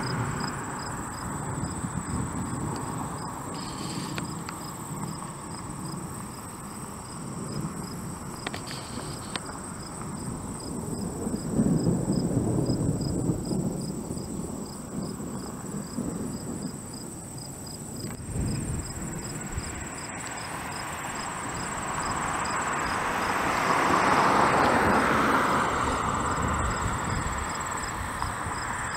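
Crickets chirping in a steady, even pulse over a continuous high insect buzz. Low rumbling swells up twice, about twelve seconds in and again near twenty-four seconds, as distant thunder from the storm.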